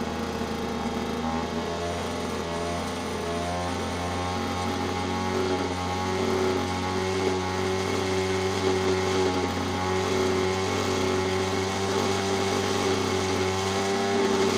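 Puch E50 single-cylinder two-stroke moped engine running, its speed wavering over the first few seconds and then holding steady.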